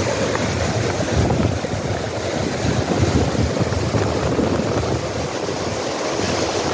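Steady rush of a fast mountain river, with wind gusting over the microphone.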